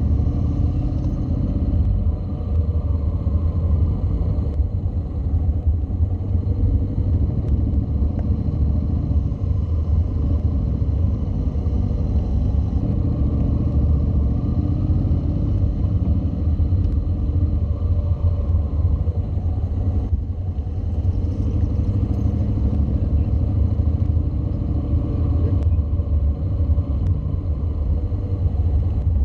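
Honda NC700's 670 cc parallel-twin engine running at low speed, its pitch rising and falling slightly as the revs change, over a steady low rumble.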